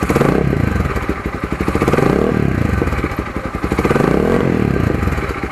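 Z200S motorcycle engine revving through a Yoshimura slip-on muffler fitted with its silencer insert: three throttle blips, each rising and falling back, then settling to an even idle near the end.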